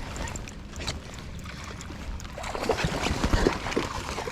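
Kayak on the water: splashing and knocks against the hull, picking up and getting louder about two and a half seconds in, over a steady low rumble.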